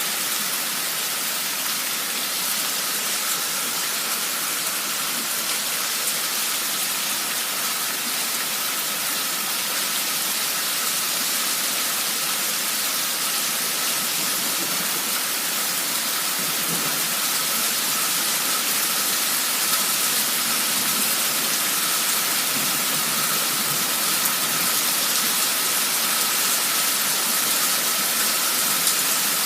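Heavy downpour of rain, a steady even hiss that holds without a break.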